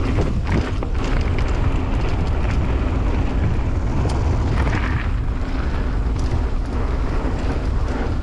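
Wind rumbling over the microphone and tyres rolling on a dirt trail during a fast mountain bike descent, with occasional brief clatters from the bike.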